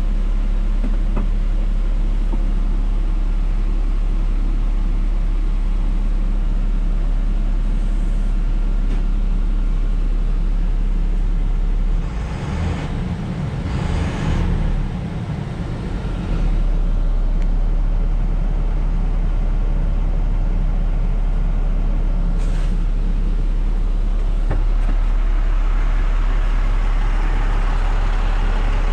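Diesel engine of a 2006 International medium-duty truck idling, heard from inside the cab as a steady low drone. The drone weakens and breaks up for a few seconds around the middle.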